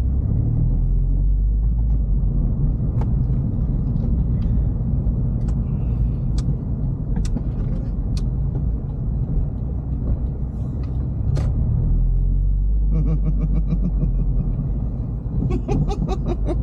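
Toyota GT86's flat-four engine and road noise heard from inside the cabin while driving: a steady low rumble, with a few short, sharp clicks scattered through it.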